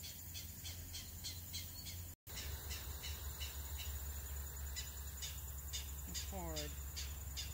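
Insects chirping steadily in a regular rhythm, about four chirps a second, over a thin steady high buzz and a low rumble. Near the end comes one short falling call. The sound cuts out briefly about two seconds in.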